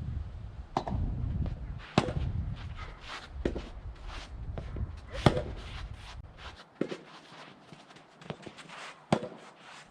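Soft tennis rackets striking rubber balls in a rally, a sharp hit every second or so. Wind rumbles on the microphone until about two-thirds of the way through.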